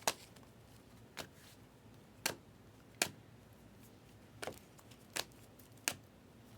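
Trading cards being handled during a pack break: seven short, sharp clicks and taps, about a second apart, as cards are flipped and set down.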